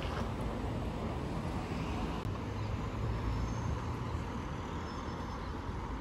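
City road traffic: cars and a double-decker bus running past, a steady low engine rumble.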